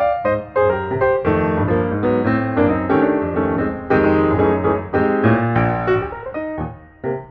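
Piano music: a run of quickly struck notes and chords, dipping briefly near the end.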